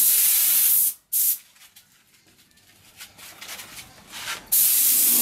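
Compressed-air paint spray gun with a cup underneath, hissing as its trigger is pulled to spray paint onto car body panels. It sprays for about a second and cuts off, gives a short blip, then starts spraying again near the end.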